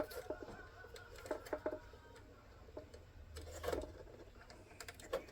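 Faint, scattered clicks and taps of a small plastic switch and its wires being handled and fitted together.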